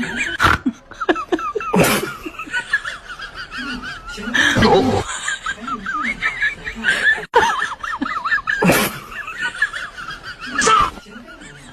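Laughter in many short, wavering bursts, with a few louder breathy outbursts.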